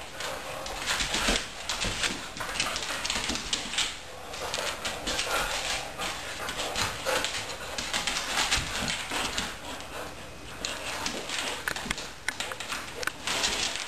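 Two huskies play-wrestling: scuffling and pawing, with dog vocal sounds mixed in and many short knocks and scrapes throughout.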